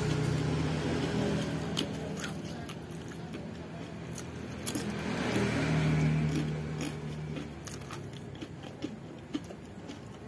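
A person eating a plate of nasi pecel: chewing, with small crunches and clicks of cutlery on the plate. A low steady hum runs underneath, swelling and fading about halfway through.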